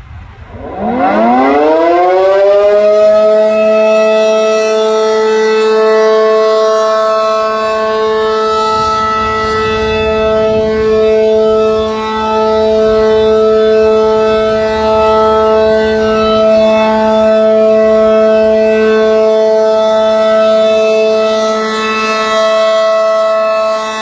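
ACA Allertor 125 rotating tornado siren with an 8/12-port chopper winding up: its two-tone wail rises in pitch over the first couple of seconds, then holds a steady alert tone. The sound swells and fades a little as the siren head turns.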